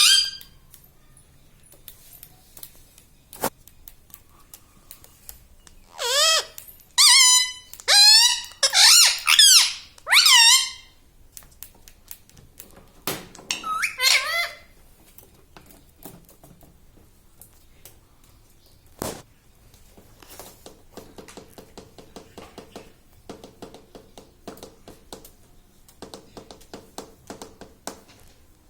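Pet Indian ringneck parakeet giving a run of loud, squeaky calls that sweep up and down in pitch, starting about six seconds in, with a shorter burst a little later. A couple of sharp single clicks and, in the second half, a faint rapid clicking follow.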